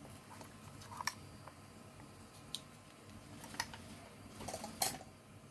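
Scattered light clicks and taps, the loudest a little before the end: a just-picked Mul-T-Lock cam lock and the metal picking tools being handled.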